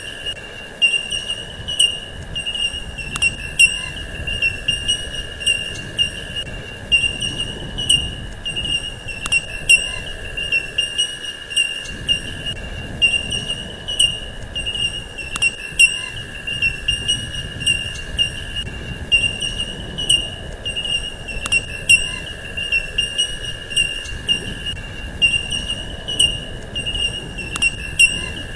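Steady high-pitched insect-like chirring that pulses slightly about once a second, over a second, lower steady tone, with faint regular ticks on top.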